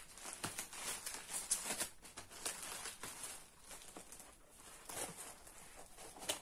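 Paper and plastic packaging rustling and crinkling as a cardboard shipping box is handled and opened with scissors, with scattered soft clicks and scrapes.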